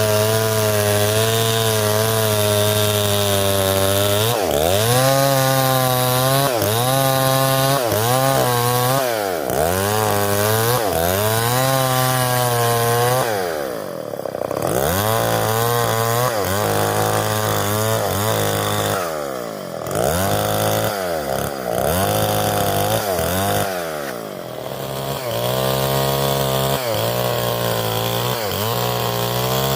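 Stihl 070 two-stroke chainsaw ripping lengthwise through a log at high revs. The engine speed sags and picks up again every few seconds, with the deepest dips around the middle and in the later part.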